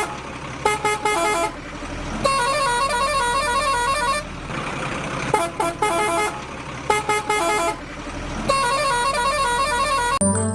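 An electronic melody of short beeping, horn-like tones repeats in a loop about every five seconds over a steady hum.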